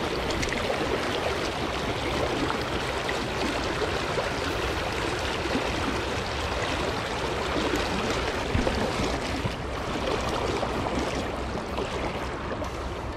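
River water flowing steadily, an even rushing noise with no break.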